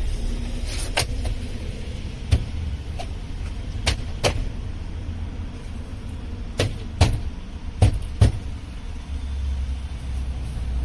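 Car door trim panel being pressed onto the door, its plastic retaining clips snapping into place: about eight sharp knocks and clicks at uneven intervals, over a steady low rumble.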